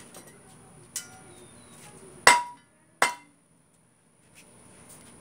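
Metal shovel blade smashing a fidget spinner on concrete: three hard clanking blows, one about a second in, the loudest a little past two seconds and another just under a second later, the last two ringing briefly.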